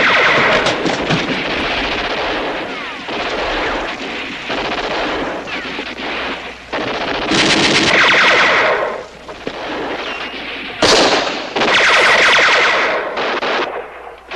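Bursts of rapid automatic gunfire on a film battle soundtrack, with the loudest bursts about eight seconds in and again from about eleven seconds.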